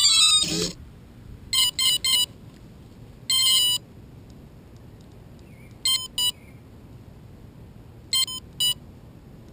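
Quadcopter's electronics beeping while it sits on the ground: three quick high beeps, one longer beep, then two pairs of beeps a few seconds apart. A brief clatter of handling comes at the very start.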